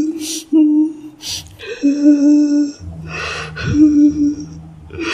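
A woman's voice moaning in long, steady held tones, three times, each broken off by a sharp, gasping in-breath.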